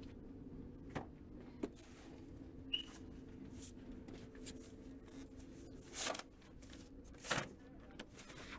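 Quiet handling noises over a steady low hum: a few light clicks in the first three seconds, then two short rustles about six and seven seconds in.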